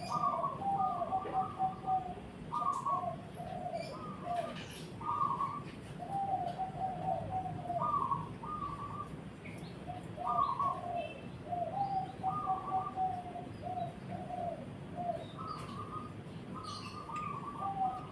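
Zebra doves cooing: continuous rhythmic phrases of short staccato notes that alternate between a lower and a higher pitch. Faint higher chirps of another small bird come through now and then.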